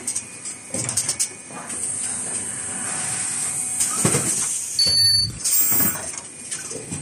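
An automated N95 cup mask machine running. Pneumatic cylinders knock and hiss at irregular intervals over a steady high hiss, and a brief high-pitched tone sounds about five seconds in.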